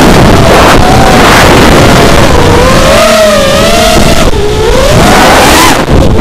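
FPV racing quadcopter's motors and propellers whining, the pitch rising and falling as the throttle changes through banking turns, with wind rush. The whine dips briefly about four seconds in and again near the end.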